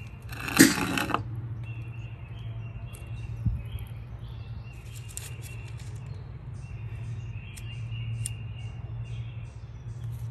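Lighter fluid squirted from a can onto charcoal briquettes in a small kettle grill, a short hiss about half a second in. After it a bird repeats a high, steady-pitched call about a second long every second or two, over a low steady hum.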